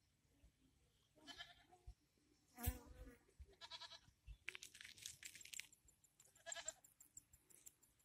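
Goats bleating: a handful of short, wavering calls, the loudest about three seconds in.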